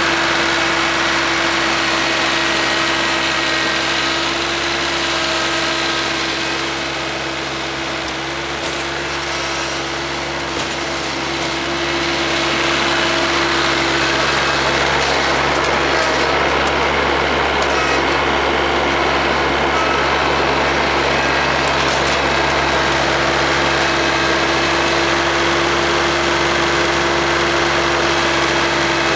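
Kioti CS2210 sub-compact tractor's 22 hp diesel engine running steadily at working speed, powering a rear-mounted 48-inch snowblower as it clears snow, with a steady whine over the engine.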